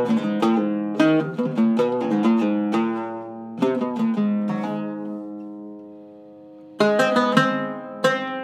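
Zaryab Iraqi-style oud with a movable bridge and cedar top, played solo with a plectrum. A run of plucked notes gives way to one note left ringing and fading for about two and a half seconds, then quick plucking starts again near the end.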